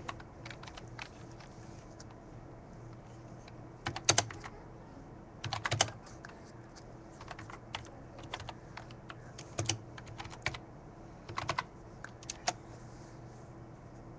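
Computer keyboard keys tapped in short irregular bursts of clicks, loudest about four seconds in and around six seconds, over a faint low steady hum.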